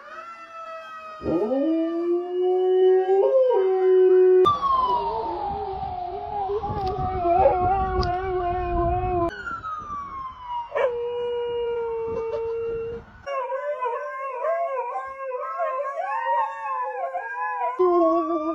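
Dogs howling in long held notes that slide up and down like a siren, in a run of short clips. In places a real emergency-vehicle siren sounds along with the howling.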